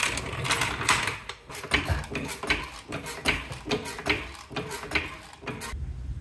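Low-profile hydraulic floor jack being pumped under the car, its handle and pump mechanism clicking and clanking in a quick, even rhythm of about three a second that stops shortly before the end.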